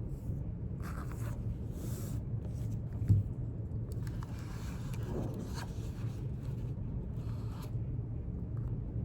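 Soft scratching and rustling of paper, pen on paper and handled pages, in several short strokes over a steady low room hum, with one soft thump about three seconds in.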